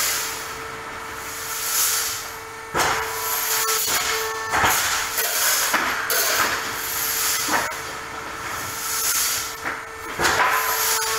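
Olimpia Chiodatrici T30 pallet nailing machine at work: swells of air hiss rise and fall, with sharp knocks every two to three seconds over a steady hum.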